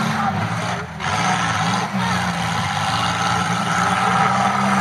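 Demolition derby car engines running and revving up and down.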